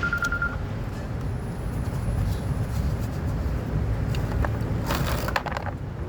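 A motor vehicle's steady low rumble, with a short, high, pulsing beep right at the start and a brief burst of noise about five seconds in.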